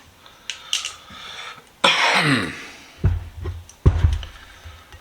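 A short, throaty vocal sound falling in pitch about two seconds in, like a person coughing. A few faint clicks come about a second in, and two dull thumps of something being handled follow about a second apart.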